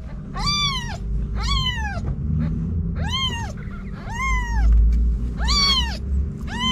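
Kittens mewing: six separate high-pitched mews, each rising then falling in pitch, about a second apart, over a low rumble.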